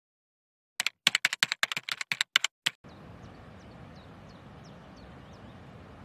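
About ten quick, sharp clicks like keys typed on a computer keyboard, starting about a second in and stopping just before the three-second mark. Then a steady low outdoor background noise with a few faint high chirps.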